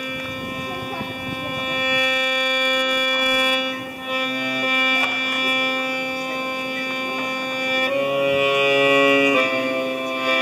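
Piano accordion playing long held chords, changing chord about eight seconds in and again a little over a second later.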